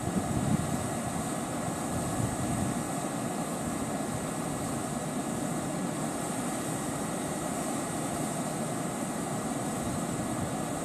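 Steady drone from a red-and-white Kintetsu local electric train standing at the station platform, its onboard equipment running without the train pulling away.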